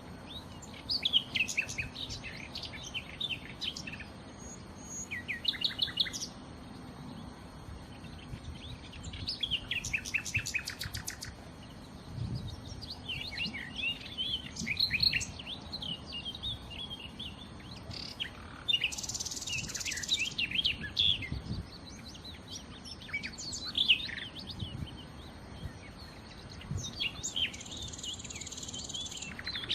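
Nightingale singing: short phrases of varied whistles, trills and quick repeated notes, broken by brief pauses, with one fast run of repeated notes about a third of the way through.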